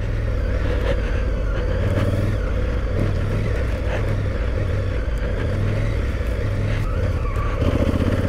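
Big twin-cylinder adventure motorcycle engine running steadily as the bike rides along a dirt track: a continuous low, pulsing rumble with wind noise over it.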